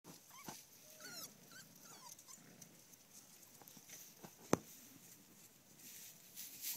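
Six-week-old puppies making several faint, short, high whimpers and yips in the first half as they tug and play over a toy, with one sharp click a little past the middle.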